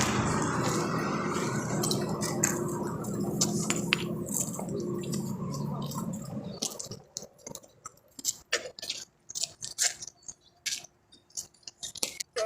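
A steady low rumble fades out over the first six seconds. After that come scattered crunches and clicks of broken demolition rubble.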